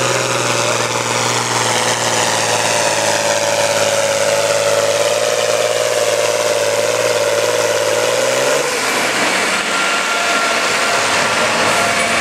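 John Deere 4020 tractor's six-cylinder engine running hard under load while pulling a weight sled, its note steady with a slight waver. About eight and a half seconds in the engine note drops away as the pull ends, leaving engines idling.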